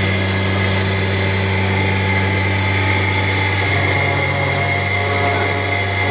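Heavy-duty wood CNC router running: a steady electric motor hum with a high whine from its spindle and drilling unit, while its horizontal drill works the end of a wooden block. A second, slightly higher hum joins about 4 seconds in.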